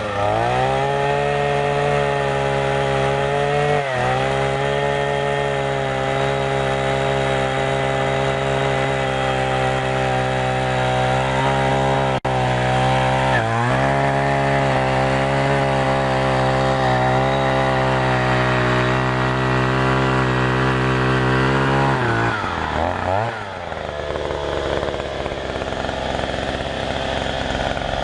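Oshima 2P earth auger's 49.9 cc single-cylinder two-stroke engine running at high, steady speed as the auger bores into the soil. The engine dips briefly twice and then drops to idle about three-quarters of the way through.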